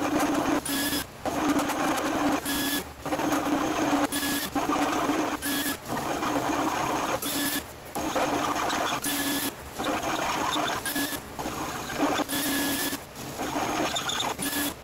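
Drill press boring out a 1/4-inch pilot hole to 3/4 inch in steel plate. A steady motor hum runs under a grinding cutting noise that breaks off briefly every second or two.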